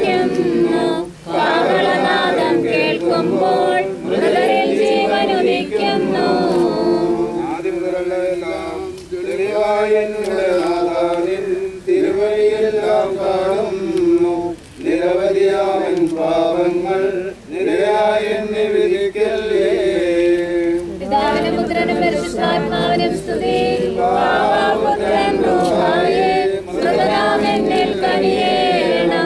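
A group of voices singing a Malayalam Christian funeral hymn unaccompanied, in a slow melody broken by short pauses between lines.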